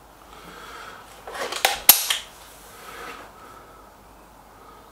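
Air rifle being readied for a shot: a soft rustle, then a quick run of metallic clicks about a second and a half in, ending in one sharp snap.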